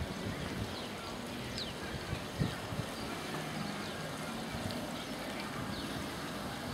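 Wind buffeting the microphone as a low, uneven rumble over a steady outdoor hiss, with a brief louder bump about two and a half seconds in. Faint, short, high chirps come and go throughout.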